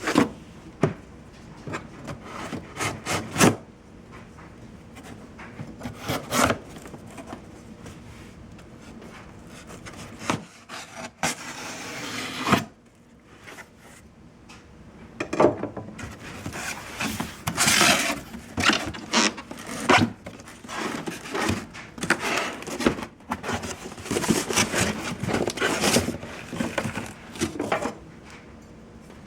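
Cardboard box and packing material being handled and pulled open: irregular rubbing and scraping with scattered knocks and clicks, a longer rasping scrape about ten seconds in, and busier handling in the second half.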